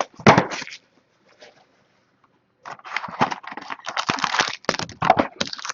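Trading cards and their packaging being handled: irregular rustling, crinkling and clicking. There is a short burst, then about two seconds of quiet, then dense, busy rustling.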